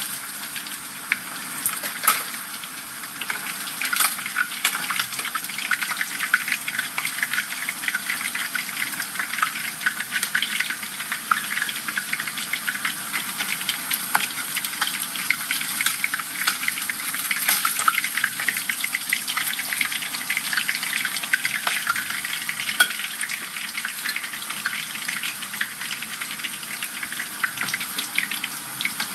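Whole dorado fish deep-frying in hot oil in a pan: a steady sizzle, thick with small crackling pops of spattering oil.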